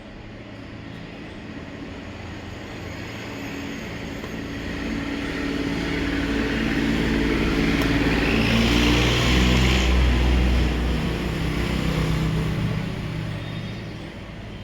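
A motor vehicle driving past. It grows louder to a peak about nine to ten seconds in and then fades, and its engine note drops in pitch as it goes by.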